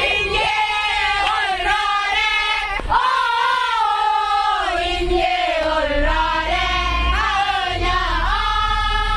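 A group of choir members, mostly women, singing loudly together in unison with long, sliding held notes, heard inside a bus with the bus's low rumble underneath.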